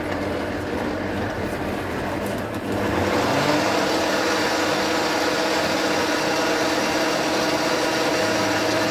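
Countertop blender running steadily as it purées broccoli soup, a motor whir with several steady tones. About three seconds in it gets louder and brighter and then holds steady.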